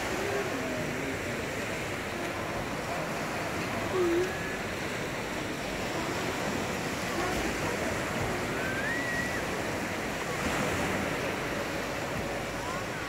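Small waves washing onto the beach: a steady surf hiss, with faint voices now and then.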